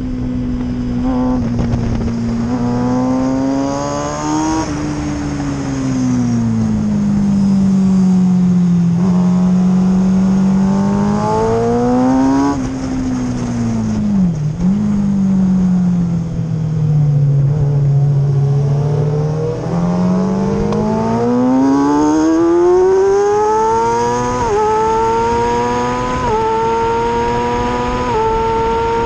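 Motorcycle engine heard from an onboard camera, its pitch falling as it slows into corners and rising as it accelerates out, several times over. Near the end it climbs hard with three quick upshifts.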